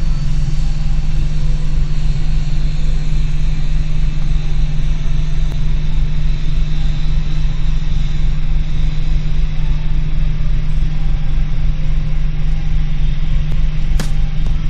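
De Havilland Dash 8 Q400 turboprop taxiing, its Pratt & Whitney PW150A engines and six-bladed propellers making a loud, steady drone over a low rumble. A single sharp click near the end.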